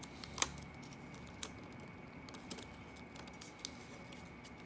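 A US one-dollar bill being folded by hand on a table: faint paper rustling with a few soft clicks as the creases are pressed flat, the sharpest about half a second in.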